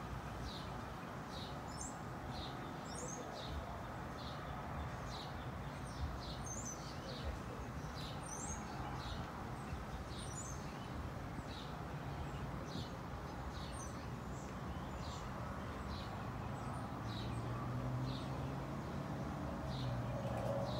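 Small bird chirping: short high chirps repeated about one to two times a second over steady outdoor background noise. A low steady hum comes in near the end.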